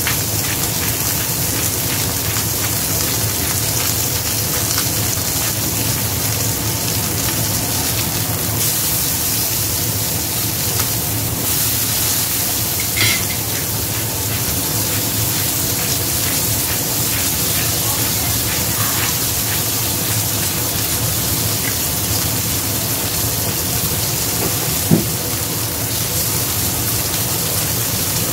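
Beef strips sizzling steadily as they sear in hot oil in a nonstick frying pan. A couple of brief knocks, about halfway through and near the end.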